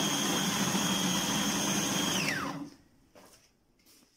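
Electric food processor running steadily as it minces chicken with onion and coriander leaves; a little over two seconds in it is switched off and the motor whine falls in pitch as it spins down to a stop. A few faint clicks follow.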